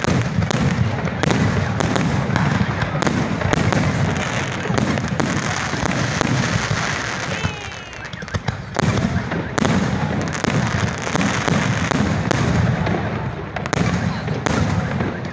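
Aerial fireworks bursting in rapid, near-continuous bangs and crackles, easing briefly about eight seconds in.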